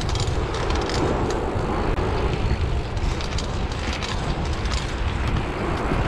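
Wind rushing over a moving microphone and bicycle tyres rolling on asphalt as an SE Bikes Boston Ripper is ridden in a wheelie, with a few light clicks scattered through.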